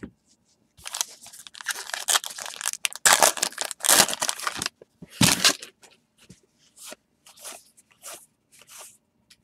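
A baseball card pack wrapper being torn open and crinkled, with dense crackling that runs for about four seconds and one short loud rip near the middle, followed by a few light ticks of cards being handled.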